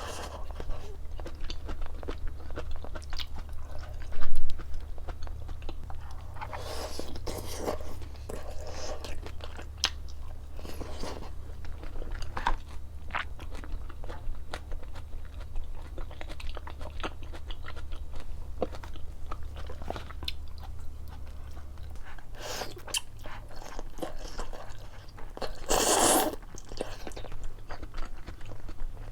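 Close-miked eating: crunchy bites and chewing of crispy food, with many sharp crackles. A brief, much louder knock comes about four seconds in.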